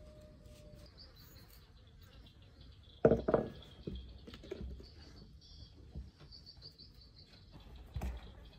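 Faint high chirping in the background, with a sharp knock about three seconds in, the loudest sound, and a softer knock near the end, from kitchen utensils and dishes being handled.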